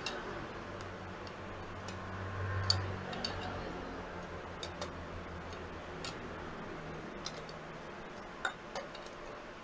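Scattered light metallic clicks and ticks of a hand wrench working as the bolts of a scooter's generator (stator) cover are tightened down in a diagonal pattern, with a faint low hum underneath.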